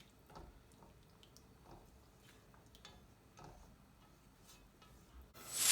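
Curry sauce simmering in a pan, with faint scattered pops and ticks. Near the end the background changes abruptly and one short, loud, sharp sound is heard.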